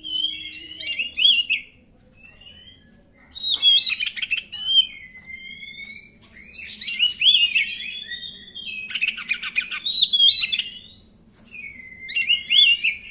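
Oriental magpie-robin (kacer, black-breasted form) singing in four bursts of rapid, varied whistled phrases with short pauses between them, and a run of scratchy, rattling notes about two-thirds of the way through.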